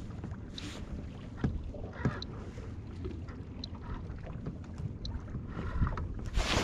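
Steady low rumble of wind and water around a small fishing boat, with a couple of faint knocks. Louder rustling builds near the end.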